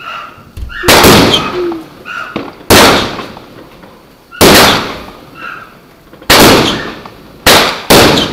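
Aerial fireworks bursting: six loud bangs spaced about a second and a half to two seconds apart, the last two close together, each followed by a fading tail.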